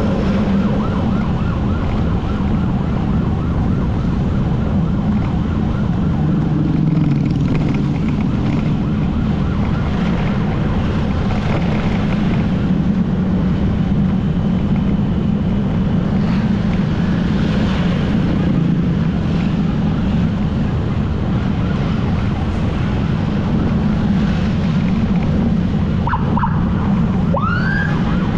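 Motorcycle engine running under way with wind noise over the microphone. An emergency siren sounds with it: a fast warble at the start and a rising wail near the end.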